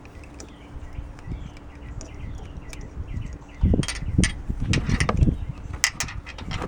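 Hand-tool work on the AC compressor clutch: a loose bolt and metal parts being handled against the clutch coil housing, giving a run of sharp clicks and knocks that starts about halfway through, after a quiet first half.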